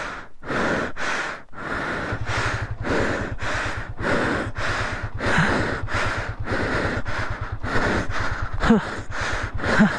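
A person breathing hard and fast, about two heavy breaths a second, with a few short voiced gasps, worn out from fighting the motorcycle up a rocky climb. From about two seconds in, the motorcycle's engine runs low underneath.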